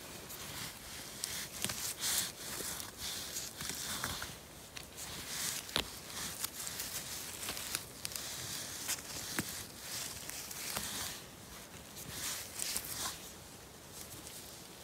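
Rustling and small snaps of mushrooms being plucked from moss by hand, with scattered steps on the soft forest floor.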